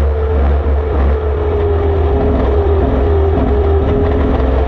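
Dirt slingshot race car's engine, picked up by the onboard camera, running hard at a fairly steady pitch that dips slightly and recovers, over a heavy low rumble.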